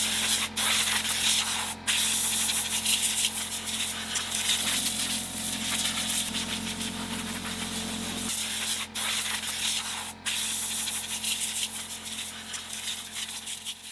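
Compressed-air blow gun hissing in long blasts, cut off briefly four times as the trigger is let go, blowing off a chainsaw. A steady low hum runs underneath and partly drops away about eight seconds in.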